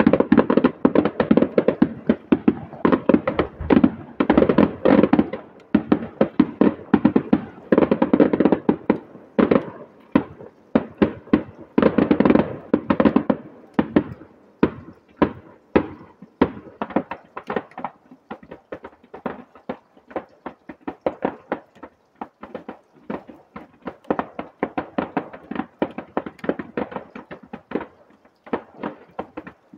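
Distant aerial firework display: a rapid barrage of bangs and crackles, heaviest in the first half, then thinning to separate cracks several a second.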